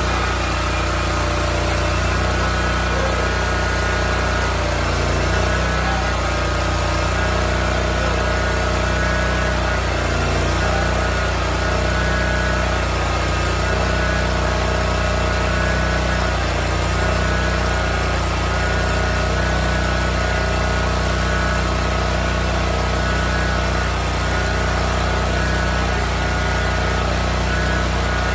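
Cub Cadet zero-turn mower engine running steadily just after starting, while the lap bars drive the jacked-up rear wheels to bleed air from the hydrostatic transmissions.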